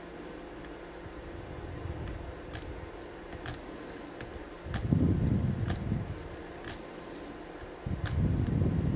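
Lock pick and tension wrench working in a brass padlock: scattered light metallic clicks, with two louder low handling rumbles about five and eight seconds in.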